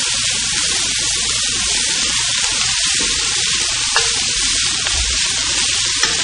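Pickled mustard greens stir-frying in oil in a wok over high heat: a steady, loud sizzle, with a spatula scraping and clicking against the wok, sharpest about four and six seconds in.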